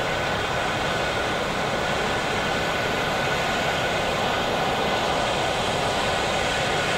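Steady outdoor city din, an even rushing noise with no distinct events, of the kind made by rail traffic and a busy urban plaza.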